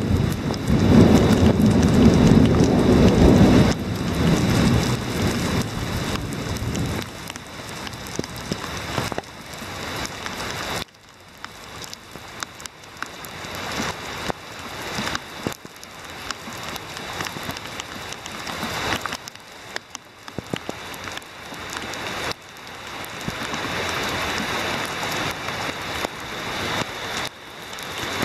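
Heavy rain pouring onto pavement, a steady hiss with many close drops ticking. A low rumble of thunder rolls through the first few seconds and dies away.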